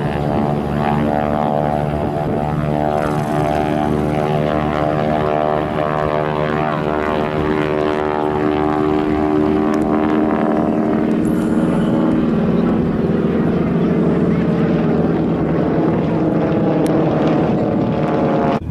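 Two North American AT-6D Texan trainers flying a display overhead, their nine-cylinder Pratt & Whitney R-1340 radial engines and propellers making a loud, steady, many-toned drone. Past the middle, the pitch shifts slightly as they pass.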